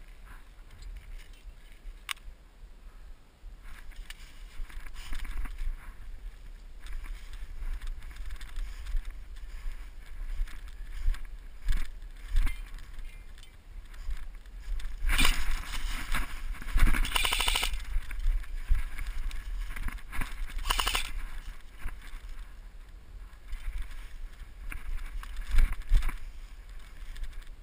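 Footsteps and body movement through dry fallen leaves, with a steady low rumble of wind and handling on a body-worn action camera's microphone. The leaf crunching gets louder a little past halfway and again briefly about twenty seconds in.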